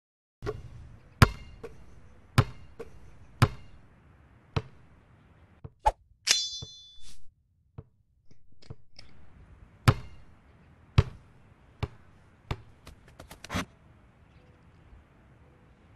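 A series of sharp knocks and clanks, mostly about a second apart. About six seconds in comes a short, bright ringing chime, and near the end a quick run of clicks.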